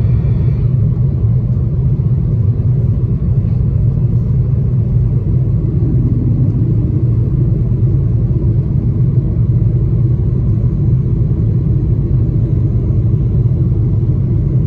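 Cabin noise inside an Airbus A330-300 climbing out after takeoff: a steady low rumble of the jet engines and the airflow. A faint high whine cuts off less than a second in.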